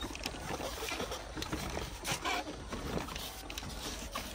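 Plastic ride-on toy car being pushed and steered by small children: irregular light clicking and rattling of its plastic body and wheels, over a steady low rumble.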